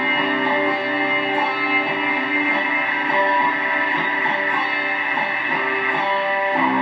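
Electric guitar in open C tuning being played, with sustained notes and chords ringing out and the chord changing near the end.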